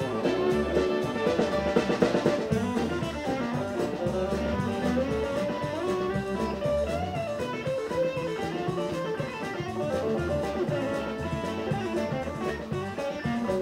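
Live country band playing an instrumental break: fiddle and guitar over a steady drum-kit beat, with no singing.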